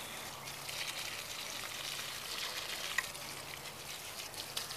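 Garden hose nozzle spraying water onto plants and straw mulch: a steady hiss of the spray landing, with one sharper click about three seconds in.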